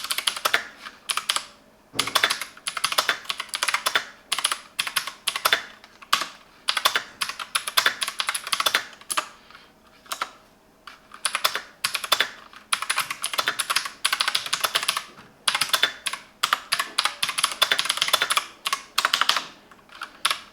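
Typing on a Silvercrest semi-mechanical gaming keyboard: fast runs of sharp key clicks in bursts of a few seconds, with short pauses between them.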